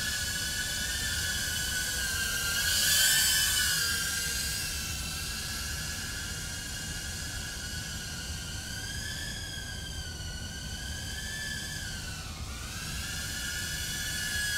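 Tank95-HD 2-inch FPV quadcopter's motors and propellers whining in flight, the pitch rising and falling with the throttle. It is loudest about three seconds in, and the pitch drops sharply and climbs back shortly before the end.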